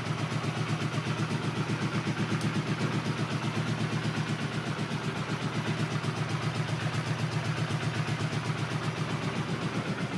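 1982 Honda CX500's two-cylinder V-twin engine idling steadily with an even pulsing beat, running again after its restoration.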